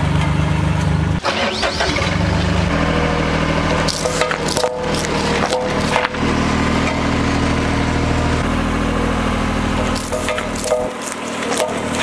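Road roller's engine running steadily, its tone shifting a few times, with clusters of sharp cracks and crunches about four to six seconds in and again near the end.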